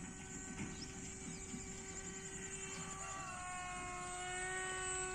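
Battery-powered RC plane's electric motor and propeller heard faintly as a steady pitched whine, which shifts up a little in pitch about three seconds in as the throttle changes.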